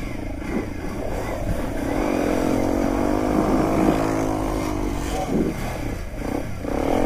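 ATV engine running under throttle while riding over snow, its pitch rising and falling as the revs change.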